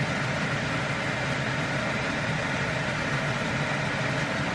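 Kitchen range hood extractor fan running, a steady even rush of air with a low hum underneath.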